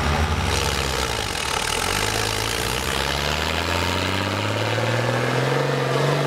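Fiat 130-90 tractor's six-cylinder diesel engine working hard under load, pulling a weighted trailer in a tractor pull. Its pitch climbs steadily from about two seconds in, then holds high near the end.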